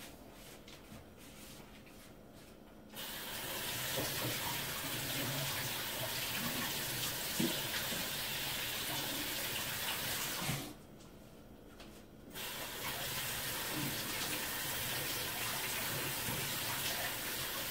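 Kitchen faucet running, turned on about three seconds in, shut off for a moment just past the middle, then running again, with a single small clack under the water.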